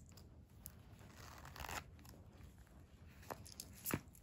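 Faint handling of coins and a grained leather wallet: a brief rustle about a second and a half in, then two light clicks near the end as the coins go into the wallet's zip coin pouch.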